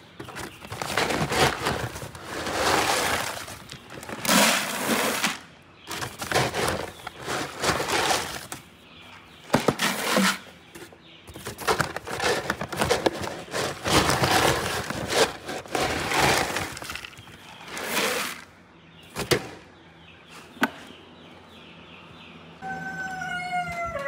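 Dry feed pellets scooped with a plastic scoop from paper feed sacks and poured into a plastic bucket: a run of rattling, rustling pours with clicks of the scoop between them. Near the end, water starts running from an outdoor spigot into a tub.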